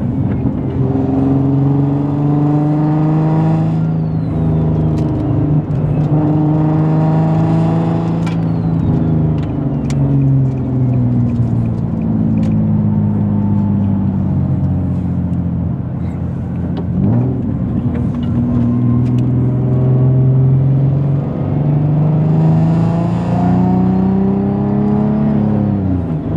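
Nissan Z sports car's engine pulling hard through the gears: the engine note climbs in pitch and drops sharply at each upshift, four times over, with steady running between pulls.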